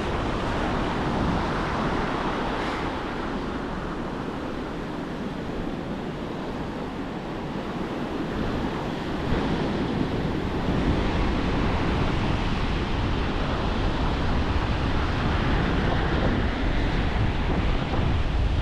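Ocean surf washing onto the beach, with wind buffeting the microphone; the low wind rumble grows heavier about halfway through.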